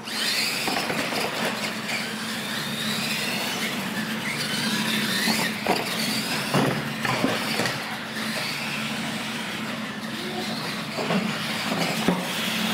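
Radio-controlled monster trucks racing. The motors and gears whine, rising and falling with the throttle, with a few sharp knocks in the middle.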